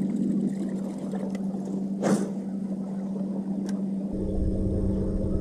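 Electric trolling motor on a bass boat humming steadily at one pitch. About two seconds in there is one short sharp sound, and about four seconds in a low rumble joins the hum.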